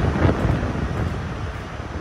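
A GWR Castle-class HST's Mark 3 coaches rumbling past on the rails, the train's noise easing off a little towards the end, with wind buffeting the microphone.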